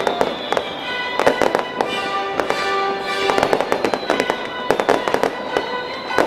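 Fireworks display: rapid, irregular bangs and crackles of bursting shells, over the show's music with long held notes.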